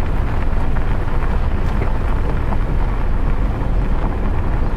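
Steady low rumble of wind buffeting and road noise inside a moving Toyota Hilux pickup's cab, with the side window open.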